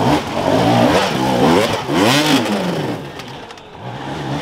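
Dirt bike engine revving in repeated bursts, the pitch swooping up and falling back, with the biggest rev about two seconds in. It drops lower after about three seconds.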